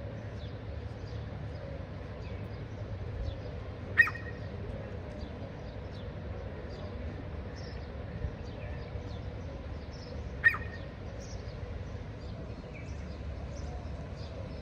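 Small birds chirping, with a louder sharp call three times, about six seconds apart, over a low steady rumble.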